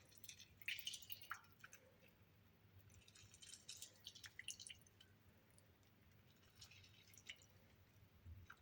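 Faint wet crackles and drips from food being handled in a kitchen, in three short spells: about a second in, from about three to four and a half seconds in, and around seven seconds in.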